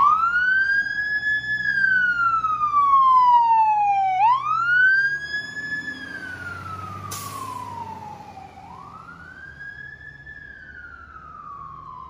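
Fire truck siren wailing: each cycle climbs quickly, holds briefly, then slides slowly down, about three times, fading as the truck moves away. A faint engine hum runs underneath.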